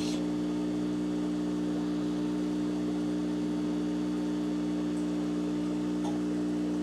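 A steady hum with a light hiss at an even level, with two faint ticks about five and six seconds in.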